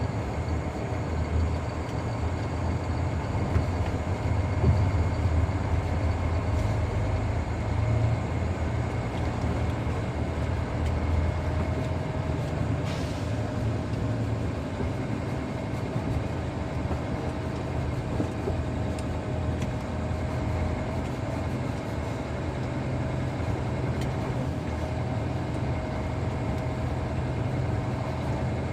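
Heavy diesel machinery engine running steadily with a low rumble, a faint steady whine riding above it.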